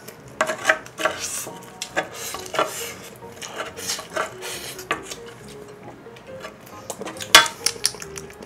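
Wooden spoon scraping and clinking repeatedly against the bottom of a metal tray pan, gathering leftover fried rice, with a sharper knock about seven seconds in.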